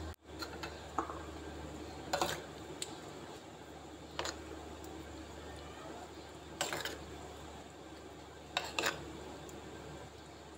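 A metal spoon stirring thick yogurt with chopped vegetables in a terracotta clay bowl. It clinks and scrapes against the bowl's side every couple of seconds, with a quick double knock near the end.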